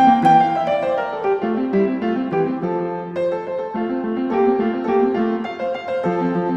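Background piano music, a quick run of notes at a steady level.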